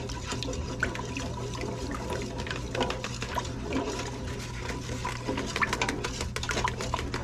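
Cold grape juice being stirred in a pot as pectin is mixed in: liquid swishing with many quick light clinks and ticks of the utensil against the pot, over a steady low hum.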